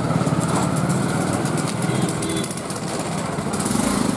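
A small engine running steadily, with an even low rumble.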